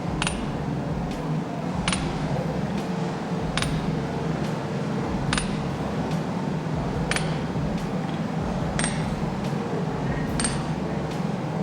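Hammer striking metal at a slow, even pace, about one ringing blow every second and a half to two seconds, seven in all, over a steady low hum.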